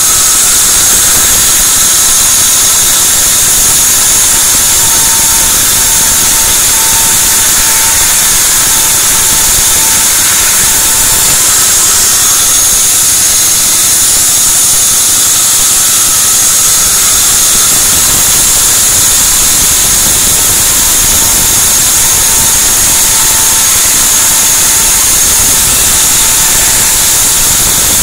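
Sawmill saw running loud and steady, most of its noise a high hiss, with a faint whine that comes and goes twice.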